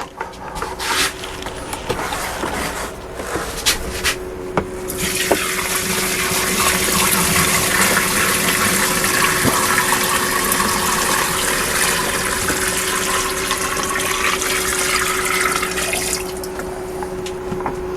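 Water running into a container and filling it. A few handling clicks come first, then a steady rush from about five seconds in that rises slowly in pitch as the container fills, and it stops about sixteen seconds in. A faint steady hum runs underneath.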